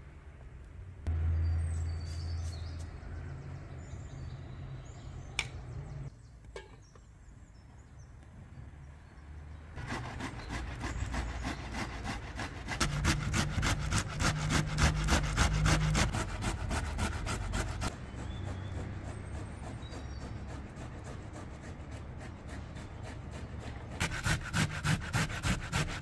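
Vegetables rasped on a metal box grater over an aluminium tray: rapid scraping strokes starting about ten seconds in, about four a second near the end. Before that, a low steady rumble.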